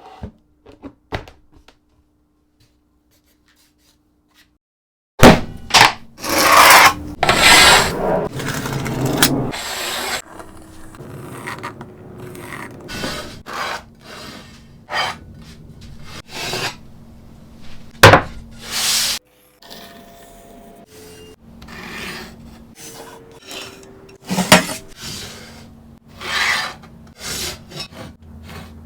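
Rubbing and scraping on a wooden board during hand work. After a few seconds of near silence, a run of loud strokes follows, then quieter scrapes with scattered sharp knocks.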